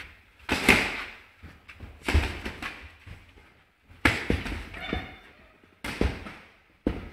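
Boxing gloves thudding as punches land during close-range sparring: five sharp thuds roughly one to two seconds apart, with fainter knocks between.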